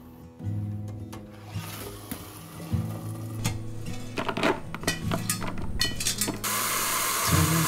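Stainless steel pot and steamer basket clinking as blanched bean sprouts are lifted out and tipped into a plastic colander, with several sharp knocks. About six seconds in, water starts running steadily into the sink. Soft background music underneath.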